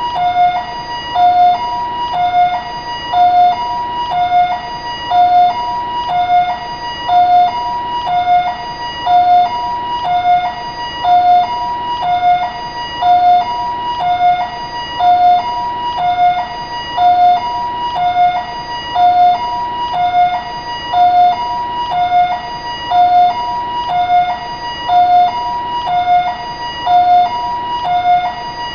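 Taiwanese ambulance siren sounding a two-tone hi-lo pattern: a higher and a lower tone alternate evenly, each held about half a second, repeating steadily.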